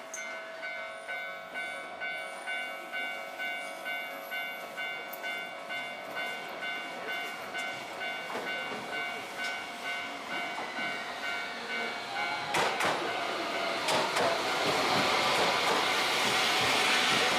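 Level-crossing warning bell ringing in an even electronic clang, about one and a half strikes a second. About two-thirds of the way through, a Tokyu Setagaya Line 300 series tram draws near, its wheels rumbling louder on the rails with a few clacks over the joints.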